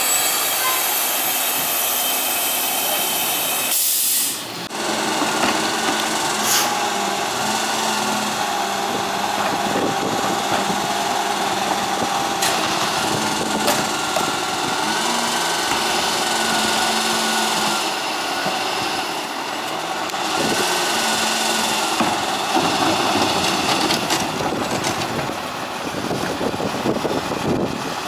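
Pak Mor rear-loader garbage truck's hydraulics whining and hissing over the running truck engine as the rear cart tipper lifts and dumps a recycling cart into the hopper, with a few sharp knocks.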